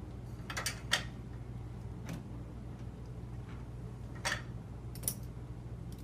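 A handful of short, irregular clicks and taps over a steady low hum.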